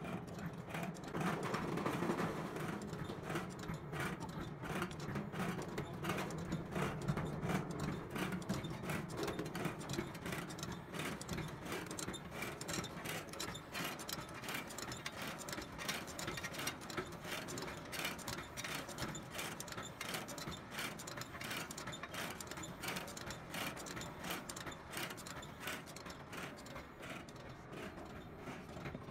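Electric date pitting machine running: its conveyor and pitting pins make a rapid, even clatter, over a low hum that is stronger in the first ten seconds or so.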